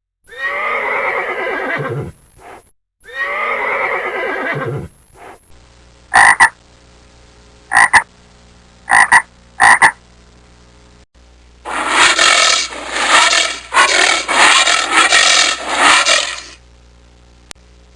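Two long animal calls, each sliding down in pitch, then frogs croaking: four short separate croaks about a second apart, followed by a rapid, dense run of croaks.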